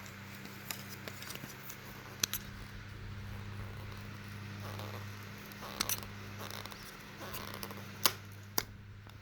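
Capuchin monkey hiccuping: a few short, sharp hics spaced irregularly a couple of seconds apart, the loudest near the end, over a steady low hum.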